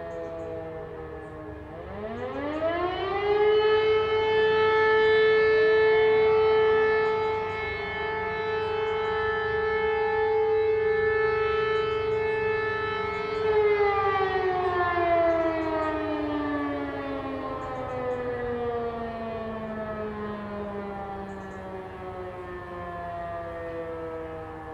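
Several E57 electromechanical civil-defence sirens sounding a fire-alarm test. One siren is still winding down when another spins up from a low growl to a steady wail, joined a few seconds later by a second siren slightly lower in pitch. The wail holds for about ten seconds and then coasts down in a long falling howl as the motors are cut, one of the interrupted tones of the German fire-alarm signal.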